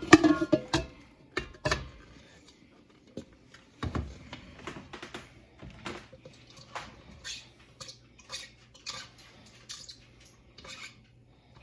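Metal utensil knocking and clinking against a pot or pan as chopped onion and garlic are scraped in to cook, with a ringing clink at the start. A low steady hum comes in about two seconds in.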